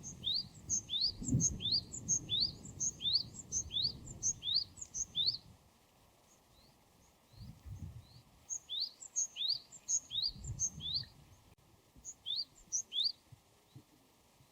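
Japanese tit (Parus minor) singing its two-note phrase over and over: a quick rising note followed by a higher short one. There are about eight phrases in a row, a pause, then two shorter runs.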